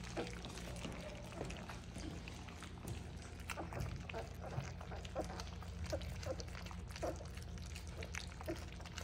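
A litter of 3.5-week-old golden retriever puppies lapping and slurping soft mushy food from a shared dish. It is a busy patter of small wet smacks and clicks, with a few short squeaks.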